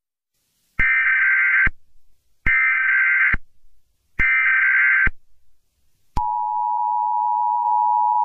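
Emergency Alert System SAME header: three short bursts of warbling digital data tones, about a second each and evenly spaced. About a second after the last burst comes the steady two-tone EAS attention signal, starting the next alert.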